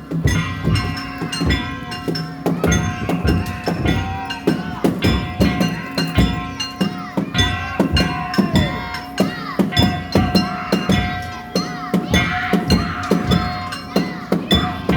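Festival hayashi music for a Daijayama float: taiko drums beaten in a fast, steady rhythm with metal gongs ringing over them.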